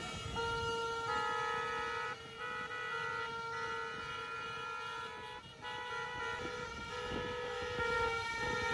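Several horns honking together in long, overlapping steady blasts that stop and start, over the low rumble of a slow-moving column of vehicles and motorcycles.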